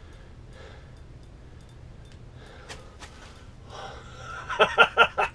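A man's breathless, excited laughing and gasping, a quick run of short voiced bursts starting near the end, as he strains against a big fish that is still running on his ice rod. Before it there is only a faint steady low hum.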